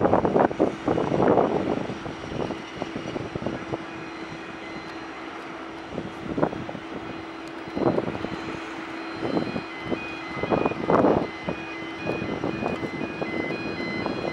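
ATR 72-600 twin Pratt & Whitney PW127 turboprops running after engine start: a steady hum with propeller noise, broken by irregular loud rushing surges. Faint repeated high beeps sound from about a third of the way in.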